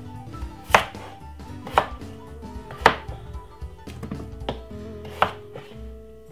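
Kitchen knife chopping a raw potato into chunks on a cutting board: about five sharp chops, roughly one a second.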